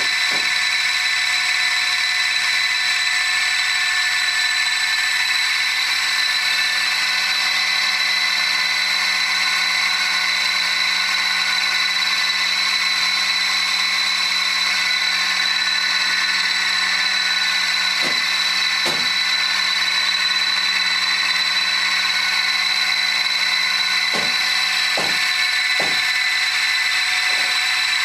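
Crankshaft balancing machine spinning a BMW R100GS airhead boxer crankshaft on its belt drive to measure the crank's imbalance: a steady high-pitched mechanical whine with a low hum beneath. A few faint knocks come in past the middle.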